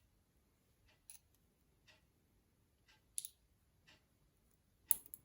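Faint, scattered small metallic clicks and ticks of a challenge lock's pins, springs and tools being handled during disassembly, about seven in all, the sharpest about three seconds in and near the end.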